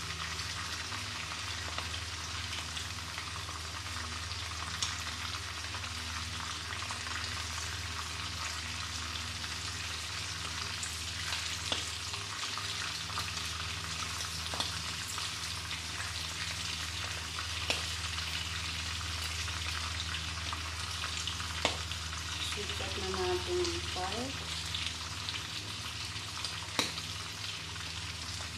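Shrimp deep-frying in hot oil in a wok: a steady sizzle with a few sharp clicks or pops scattered through it and a steady low hum underneath.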